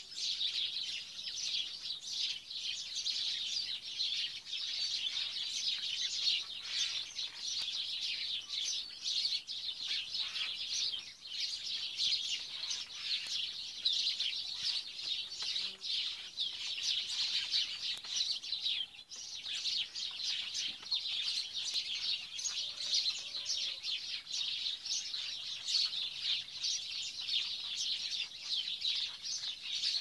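Dense chorus of many small birds chirping continuously, with a brief lull about two-thirds of the way through.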